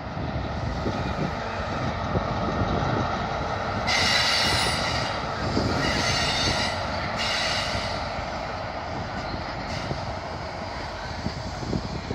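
First Great Western HST (InterCity 125), its Class 43 diesel power car and Mark 3 coaches rolling slowly along the platform with a steady rumble. From about four to eight seconds in, a high, hissing squeal from the wheels on the rails comes and goes.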